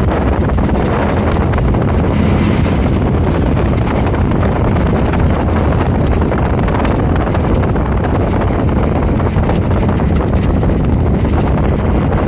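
Steady wind rushing over the microphone of a moving vehicle, with a low, even engine drone underneath.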